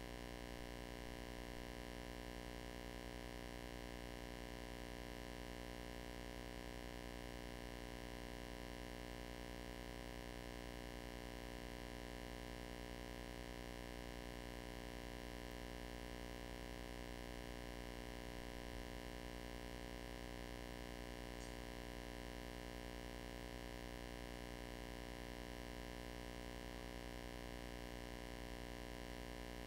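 Steady electrical hum and hiss from the recording chain, with a set of unchanging tones and no other sound.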